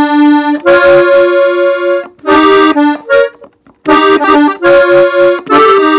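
Gabbanelli button accordion tuned in F playing an ornamental fill (adorno) in E-flat: phrases of held notes and chords, with a short break about two seconds in and a brief pause a little past three seconds.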